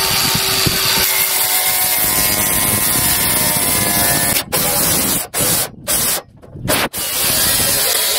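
Angle grinder with a cutting disc cutting through sheet metal, rounding off a corner of the panel. The grinding runs loud and steady, breaking off in several short gaps about halfway through.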